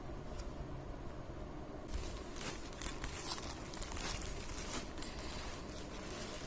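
Rustling and crinkling as something is handled, a cluster of short sounds from about two to five seconds in, over a steady low rumble.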